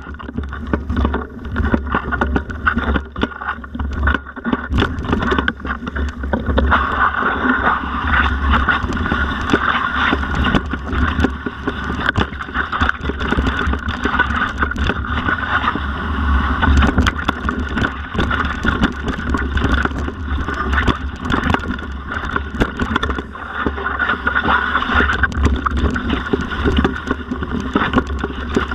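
Mountain bike ridden over a rough forest trail, heard from a camera on the bike or rider: steady wind rumble on the microphone, with frequent knocks and rattles as the bike jolts over bumps.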